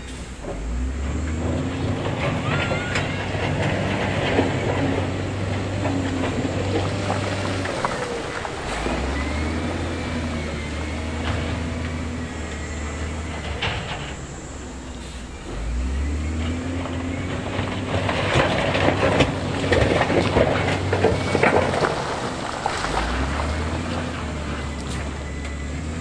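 Wheel loader's diesel engine revving up and holding under load about every seven to eight seconds, as it pushes big stones. Rock grinds and tumbles over the pile twice, loudest in the second half.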